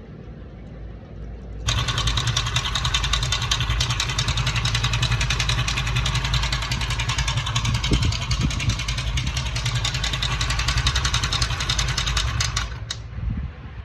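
Motorcycle engine idling, with a loud, fast metallic rattle over it that starts suddenly about two seconds in and cuts off suddenly near the end. This is the engine noise the repair sets out to cure.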